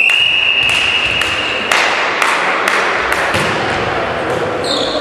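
A referee's whistle blows one long steady blast to allow the serve, followed by a string of sharp thuds about twice a second, echoing in the sports hall, as the volleyball is bounced and played.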